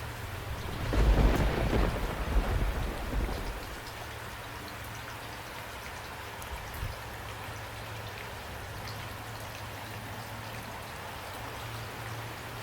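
Steady rain falling. About a second in, a loud low rumble of thunder swells and fades away over roughly two seconds.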